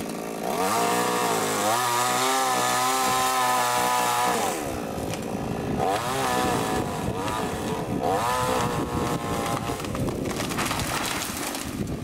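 Chainsaw revved to full speed and held steady for about four seconds while cutting, then dropping back to idle. It is revved up again twice in shorter, wavering bursts, and falls back near the end.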